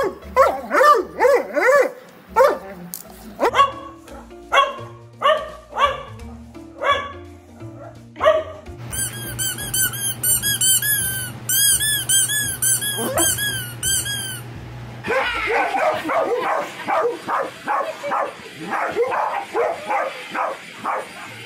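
A dog barking repeatedly over background music. Midway, a rubber squeaky toy squeaks rapidly, about three squeaks a second, as a dog bites it. Near the end, a dog barks in quick succession.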